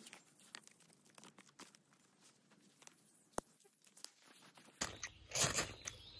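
Dry sticks being laid on a stone fire ring, with light clicks and crackles of wood and dry pine needles. About five seconds in, louder rasping scrapes begin as a knife is struck down a ferro rod to throw sparks onto birch-bark tinder.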